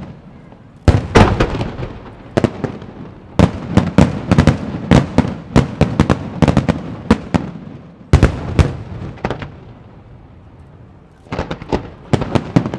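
Aerial firework shells bursting overhead in quick volleys of sharp bangs, heaviest about a second in and through the middle. After a short lull, a rapid string of smaller bangs comes near the end.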